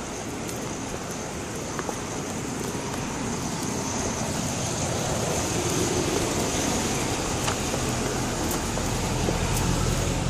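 Street traffic noise: the steady wash of car engines and tyres, getting a little louder toward the middle, with a low engine hum coming in near the end and a few faint clicks.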